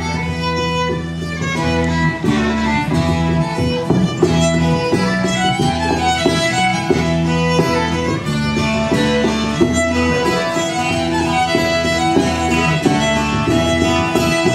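Live folk band playing a fiddle-led tune: the fiddle carries the melody over strummed acoustic guitar and a steady electric bass line.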